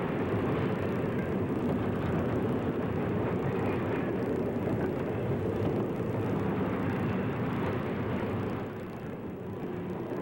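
Steady rumble of a steam-hauled freight train rolling past, dropping a little in level near the end.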